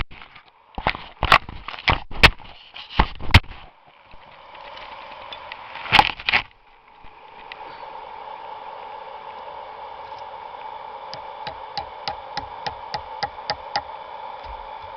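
Hammer driving a nail into a wooden support piece, half a dozen sharp blows in the first few seconds and another cluster about six seconds in. After that a steady hum sets in, with a run of light, evenly spaced ticks near the end.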